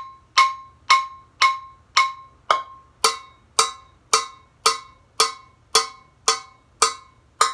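Wooden stick striking the bottom of a stainless steel saucepan about twice a second, each hit ringing briefly with a metallic tone. About three seconds in, the ring gains a lower note.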